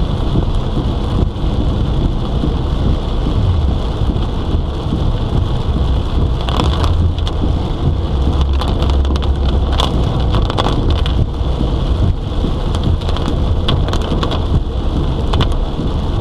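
Heavy monsoon rain pelting a moving car, heard from inside the cabin: a steady hiss with sharp patters of drops, most of them in the second half, and a deep rumble that swells in the middle.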